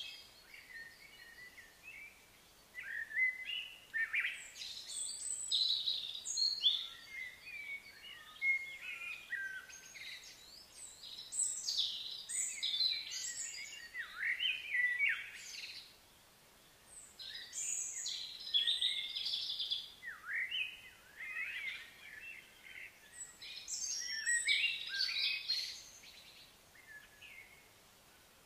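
Wild songbirds singing and chirping, with quick rising and falling calls coming in clusters a few seconds long and brief lulls between them.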